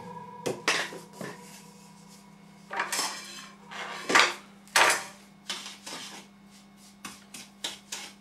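Metal spoon clinking and scraping against a frying pan in several separate strokes, stirring a powdery sugar and potassium nitrate mixture, over a steady low hum.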